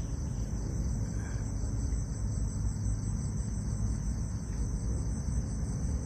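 Night insects chirring steadily in a high-pitched band that pulses a few times a second, over a steady low rumble.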